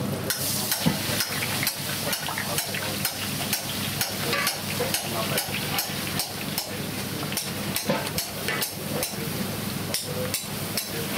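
Gram-flour batter for motichur laddu boondi sizzling as it drips through a perforated ladle into hot oil in a kadai, with regular strokes, about three a second, as the batter is pushed through the ladle.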